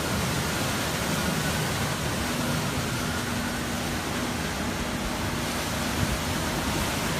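Hurricane-force wind from Hurricane Irma blowing hard, a steady, even rush of noise.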